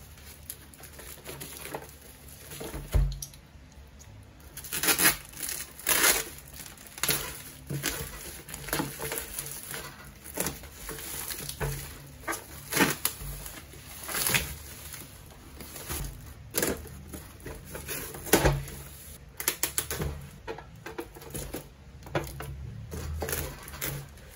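Plastic packaging and bubble wrap crinkling and tearing by hand as a parcel is unwrapped, in irregular rustles and sharp crackles, with a dull bump about three seconds in.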